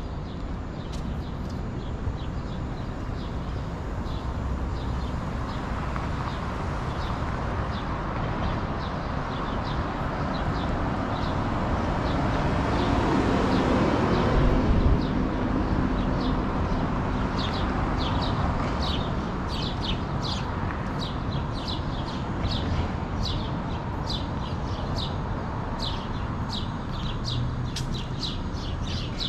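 Downtown street traffic running steadily, with a vehicle passing close and loud about halfway through. Rapid, short high chirps fill the second half.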